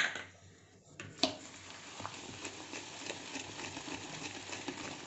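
Wire balloon whisk beating curd and jaggery in a plastic bowl: a fast, continuous swishing with many small ticks, starting about a second in. A sharp knock comes at the very start and another just after a second.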